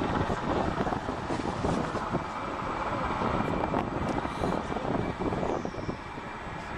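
Rescue helicopter hovering, its rotor and engine noise running steadily, with wind buffeting the microphone.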